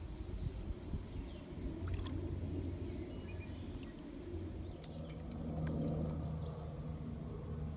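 Low wind rumble on the microphone, with a few sharp clicks and a catfish splashing at the surface as it is reeled in and lifted from the water.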